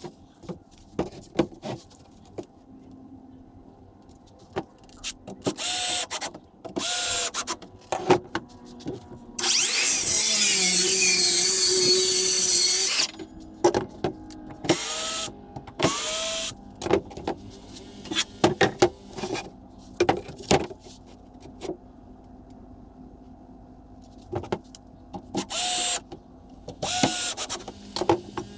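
Woodworking shop sounds: repeated short bursts of a power tool spinning up and stopping, one longer run of about three seconds near the middle, with knocks and clatter of wood and tools in between.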